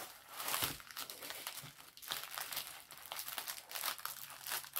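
Plastic packaging of a diamond painting kit being handled, crinkling irregularly. A faint low steady hum comes in near the end.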